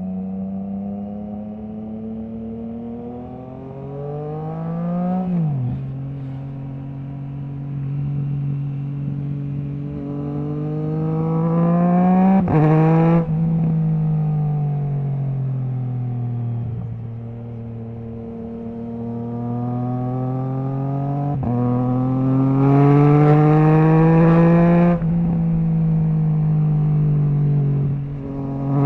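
Triumph Trident 660's three-cylinder engine through a Zard full stainless exhaust with the baffle removed, accelerating hard: revs climb and drop abruptly at each quickshifted upshift, about four times, with a stretch of easing off and falling revs in the middle. The exhaust rasps loudest at the top of each pull.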